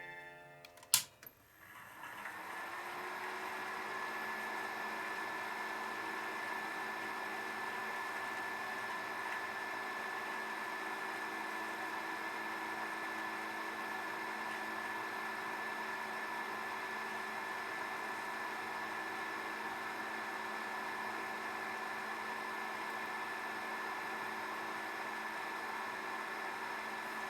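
The dehumidifier's 80 mm cooling fan is switched on with a click, spins up over about a second and a half, then runs steadily with a constant hum of several fixed tones over an airy whoosh. It runs on the new replacement bearing as the test after the repair.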